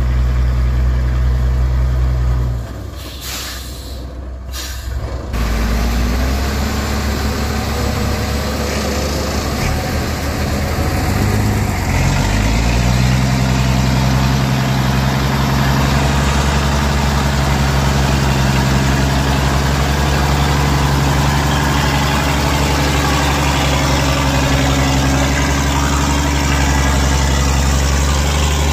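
Heavy vehicle engine running steadily, with a dip in level about three seconds in. About twelve seconds in it picks up speed and holds there.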